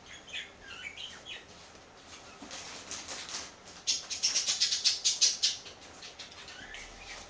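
Rustling and crinkling of things being handled, with a few short high squeaks in the first second and a half and a dense run of rapid crackles about four seconds in.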